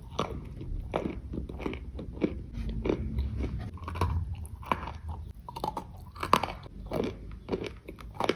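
Dry edible clay being bitten and chewed close to the microphone: irregular crisp crunches, about two a second, over the low sound of chewing.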